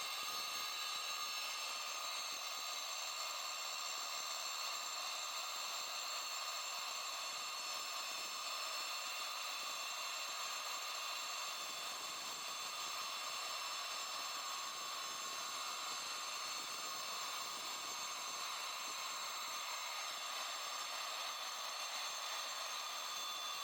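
DeWalt DWE490 9-inch angle grinder running steadily with a diamond blade, a high motor whine over a continuous hiss as it cuts through steel rebar.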